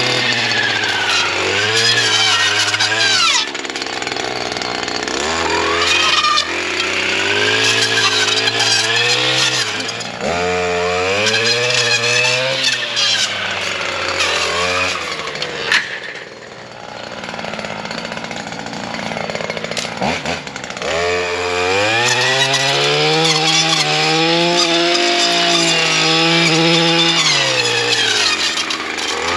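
STIHL FS 240R brush cutter's two-stroke engine running with a 9-inch chainsaw-tooth blade on, revving up and dropping back again and again as it cuts brush and saplings. It eases to a lower pitch for a few seconds around the middle.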